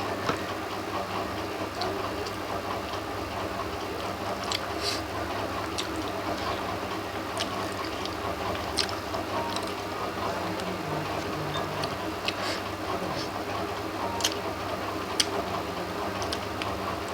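A person eating: scattered short clicks and smacks of chewing over a steady background hum.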